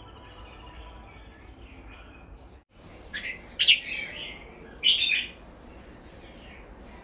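Red-whiskered bulbul, a white albino bird, calling: soft chirps at first, then a few loud, bright song phrases between about three and five seconds in.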